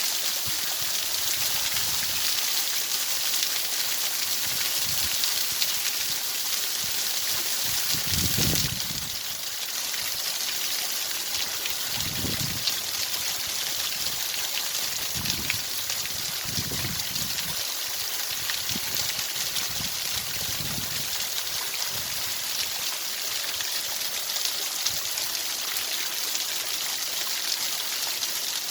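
Steady hiss of running water, strongest in the high range with a fine crackle through it. A few soft low thumps or gurgles come in the middle of the stretch.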